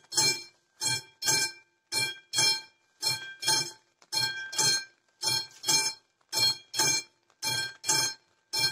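Classic electric level-crossing warning bell on an AŽD 71 crossing signal, ringing in short bursts about two a second, in pairs, as the alternately flashing red lights warn of an approaching train.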